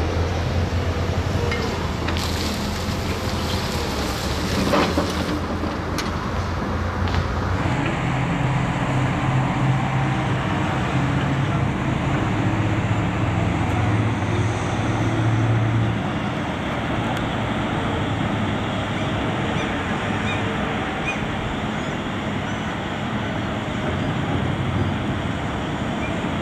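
Diesel engines of heavy earthmoving machinery, a Doosan 300 excavator and then an articulated dump truck, running steadily, with wind on the microphone and a few knocks in the first seconds. The low engine hum fades about sixteen seconds in.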